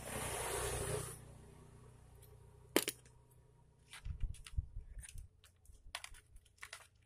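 Light metallic clicks and taps of small motorcycle carburetor parts being handled and set down: a brief rush of noise for about a second at the start, a single sharp click near the middle, then a run of quicker small clicks toward the end.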